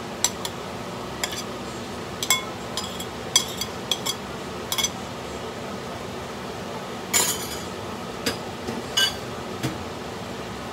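Sharp clinks and taps of a ceramic plate and metal spoon against a wok as raw shrimp are tipped into simmering tomato sauce, a dozen or so scattered knocks with a longer rattle about seven seconds in, over a steady background hiss.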